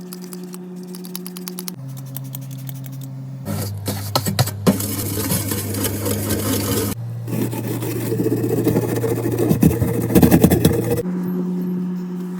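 Background music with held low notes that change every few seconds. Over it come clicks, clatter and scraping of things being handled, busiest through the middle.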